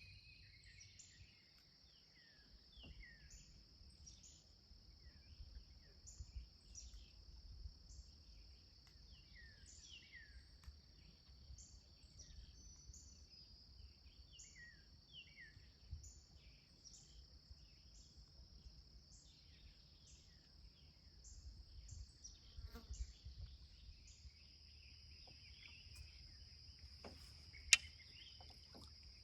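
Faint outdoor chorus: a steady high-pitched insect drone with short pulses repeating about once a second, and scattered short falling bird chirps, mostly in the first half. A single sharp click near the end.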